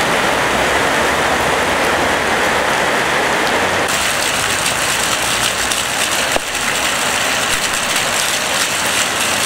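Heavy rain pouring onto a flooded street, a steady hiss, with cars splashing through the floodwater. The sound changes abruptly about four seconds in.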